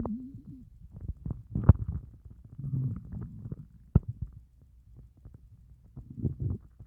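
An empty stomach growling and gurgling after a fast of over a day. A short gliding growl comes at the start, then two sharp pops about two seconds apart and low bubbling gurgles in bursts.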